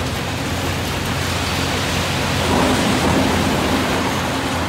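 Hydraulic demolition excavator working a concrete rubble pile: a steady engine hum under the rumble and crunch of debris, swelling louder about halfway through.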